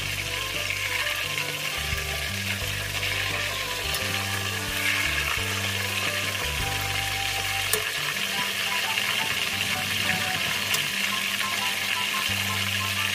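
Food frying in hot oil in a pan, a steady sizzle with a couple of sharp clicks, over background music.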